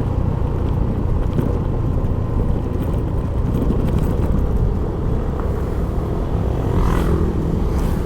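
Steady wind rush and rumble on the helmet or body-mounted camera's microphone, mixed with the running and road noise of a Yamaha Mio i 125 scooter coasting downhill.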